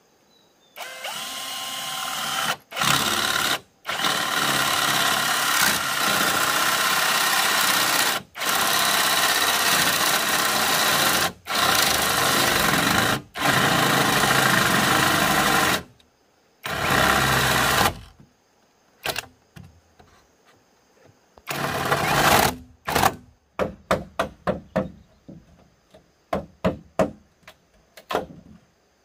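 Handheld electric power tool working bamboo: the motor spins up about a second in and runs in long stretches of several seconds, each cut off briefly. Near the end it gives a quick string of short bursts.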